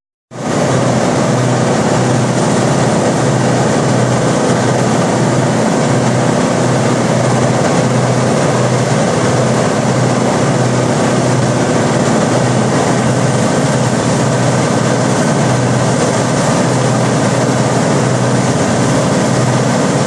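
Morbark 40/36 whole tree chipper running steadily and loud, its engine and drum noise starting abruptly a moment in, while the infeed chains carry logs toward the feed opening.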